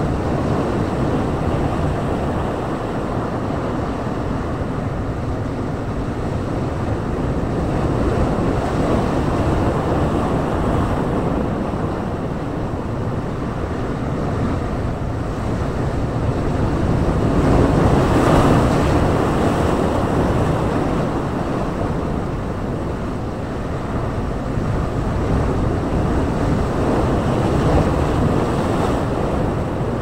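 Sea waves breaking over and surging through boulders on a rocky shore: a continuous wash of surf that swells several times, loudest about eighteen seconds in.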